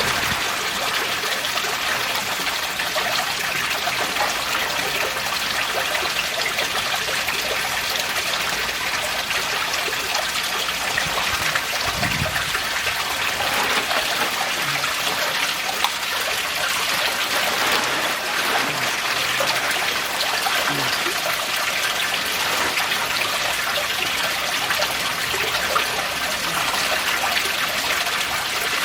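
Water trickling and splashing steadily into a garden koi pond.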